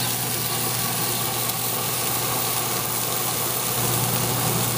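Beef brat burgers sizzling on grill grates over a gas grill: a steady, crackly hiss over a low, constant hum.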